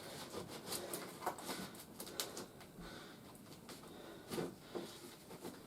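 A large cardboard shipping box being opened by hand: scattered light scrapes, rustles and soft knocks at irregular times.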